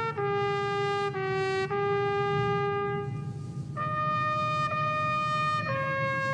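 Solo trumpet playing a slow melody of held notes, pausing briefly about three seconds in and then going on with higher notes.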